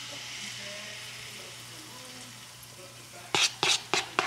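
Banana-fritter batter sizzling in hot oil in a frying pan, the sizzle starting as a spoonful drops in. Near the end come four sharp knocks within about a second, louder than the sizzle.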